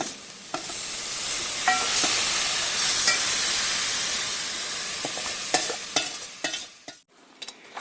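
Marinated chicken sizzling in hot oil and ghee with browned onions in a pot. The sizzle starts about half a second in and slowly dies down after about five seconds. A few short clicks come near the end.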